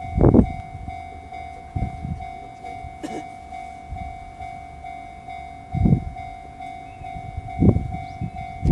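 Empty railway tank wagons rolling past, their wheels knocking over the rail joints in irregular groups, while a level-crossing warning bell rings a steady tone throughout.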